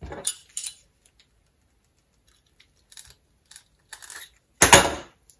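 RG-213 coax being stripped by hand: scattered short scraping and rustling noises of the cable jacket and braid being worked. There is a brief burst at the start, and the loudest scrape, about half a second long, comes near the end.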